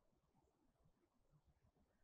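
Near silence: only faint low background noise.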